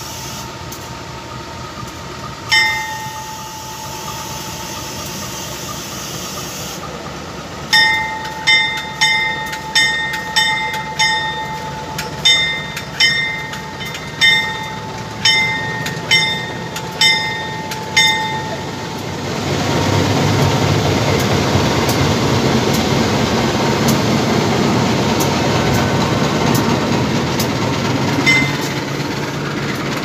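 Bell of a CC 201 diesel-electric locomotive ringing. After a couple of single clangs it strikes over and over, between one and two clangs a second, for about ten seconds as the locomotive comes past. Then a long train of flat wagons loaded with concrete sleepers rolls past with a steady rumble of wheels on rail.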